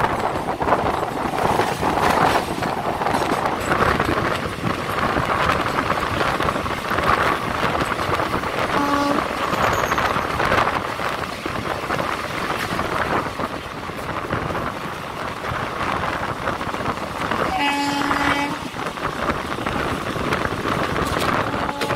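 Moving passenger train heard from the coach doorway: the steady rumble of the wheels on the rails mixed with rushing air. A train horn sounds briefly about nine seconds in, and again for about a second near the end.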